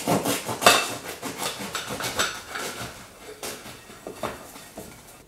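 Knife sawing through a crusty French baguette: a run of irregular crackling crunches from the crust, fading toward the end.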